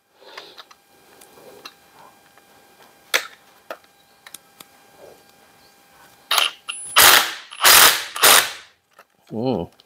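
Cordless impact driver hammering in short rattling bursts, one short one and then three louder ones, undoing the last bolt on the Ford Model T differential housing flange while a spanner holds the nut. Light clicks of the spanner and tool being fitted come before the bursts.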